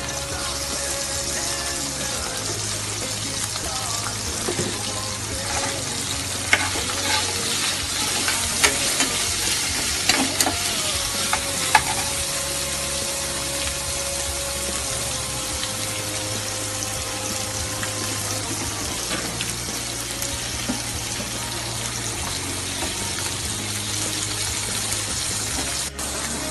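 Food frying and sizzling in a hot pan, stirred with a utensil that clinks against the pan several times around the middle.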